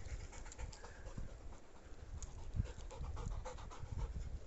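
A dog panting quickly and rhythmically, with scattered crackling clicks.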